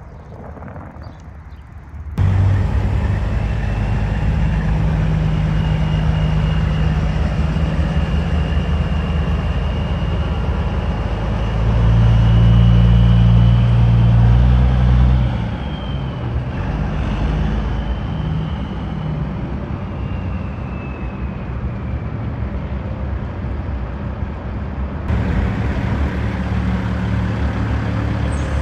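Heavy diesel semi-truck engines running on the lot, a dense low sound that starts abruptly about two seconds in and swells for a few seconds about halfway through as a truck passes close. A faint high whistle-like tone drifts up and down above the engines.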